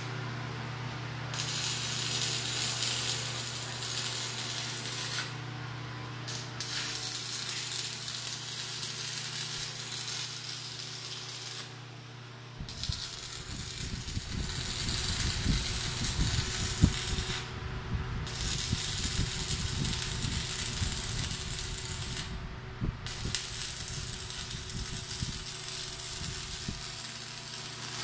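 Stick (shielded metal arc) welding with a 1/8-inch 6013 electrode at about 140 amps: the arc crackles and hisses steadily, stopping briefly about five times, over the steady hum of the welding machine. Irregular low rumbling joins in over the second half.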